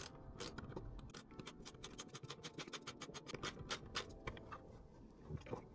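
Faint quick run of small clicks and scratches from gloved hands working a plastic flue fitting loose on top of a gas boiler.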